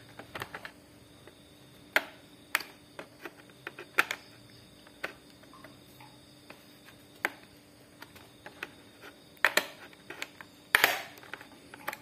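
Scattered small clicks and taps from handling a laptop RAM module as it is unclipped and pulled out of its slot, with a denser, louder run of clicks and scrapes near the end.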